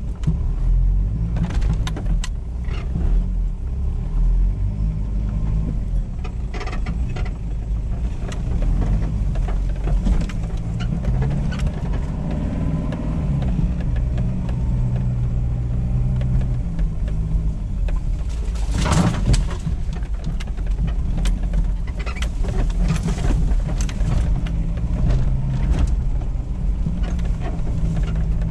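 Cabin sound of a Toyota Land Cruiser KZJ78's 3.0-litre 1KZ-TE turbo diesel running at low speed over a rough dirt track, the engine note rising and falling. Scattered knocks and rattles from the body and suspension, with one louder jolt about two-thirds of the way through.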